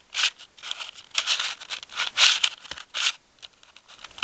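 Plastic Square-1 puzzle being turned quickly by hand: its layers clack and rattle in a fast, irregular run of short bursts that thin to faint clicks near the end.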